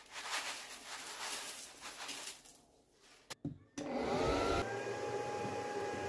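Rice grains pattering onto a table as they are poured out for about two seconds, then a switch click, and a homemade vacuum cleaner's small DC motor and fan spinning up with a rising whine before settling into a steady whine.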